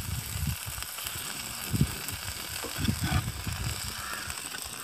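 Metal spatula stirring and scraping chicken liver fry around a black iron pan, with irregular low knocks. The frying sizzles underneath.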